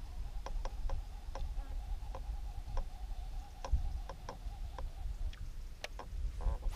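Fishing reel clicking at uneven intervals as the angler works the jig, with a faint steady whine that stops about five seconds in and low wind rumble on the microphone.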